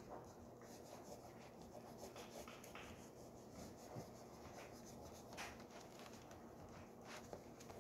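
Faint scratching of an oil pastel rubbed over paper in short, irregular strokes.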